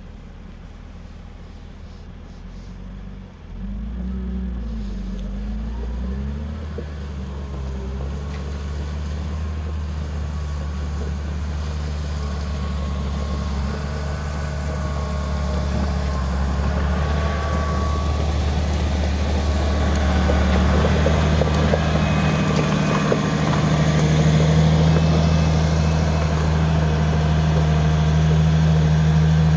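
A vehicle engine running with a steady low drone. It steps up in level about three seconds in, wavers in pitch briefly, then grows gradually louder.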